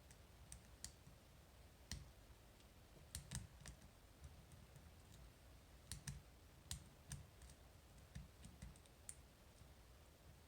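Faint, irregular clicks of a lock pick and tension wrench working the rotating pins of a Medeco Original lock cylinder, as it is picked through its false sets.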